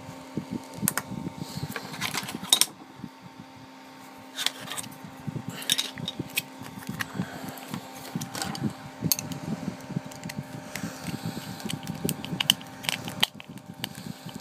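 An electric fan running steadily with a hum, under repeated clicks and taps of a plastic three-pin mains plug being handled on a tabletop.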